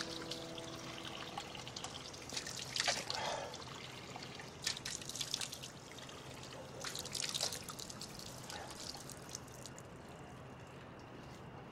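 Water running from a brass wall tap and splashing over hands being washed under it, with several bursts of splashing a few seconds apart. The splashing dies down near the end as the tap is reached for.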